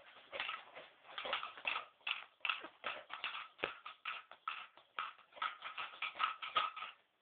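A baby making short, repeated vocal noises, about three or four a second.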